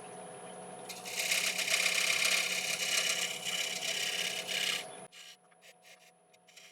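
Shear scraper taking a light finishing cut on a Monterey cypress bowl turning on a wood lathe: a loud, even scrape from about one second in to about five seconds, over the lathe's steady hum. The cut stops about five seconds in, leaving a few faint brief scrapes while the lathe runs on quietly.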